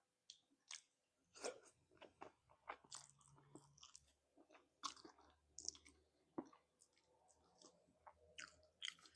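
A person chewing and nibbling ceker mercon, chicken feet in a fiery chili sauce: a quiet, irregular string of wet smacks, clicks and bites.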